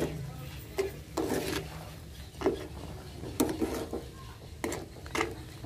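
Steel spoon stirring and scraping thick tamarind chutney in a steel pan, in irregular strokes about once a second, over a steady low hum.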